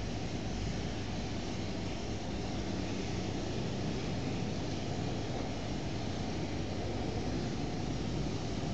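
Steady background noise: an even hiss over a low hum, with no other events.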